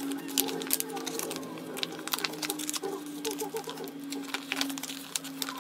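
Nail decal sheets and plastic photo-album sleeves being handled and sorted: irregular soft rustles, crinkles and light clicks.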